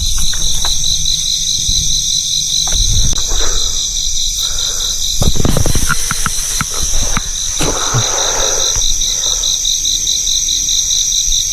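Night insects calling steadily, crickets among them: one chorus pulses at a fast even rate and a higher one runs as a continuous trill. A few brief rustles of movement or handling come through in the middle.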